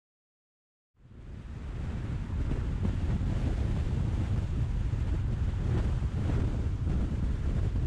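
Steady rumble of wind and road noise from a car being driven, fading in from silence about a second in.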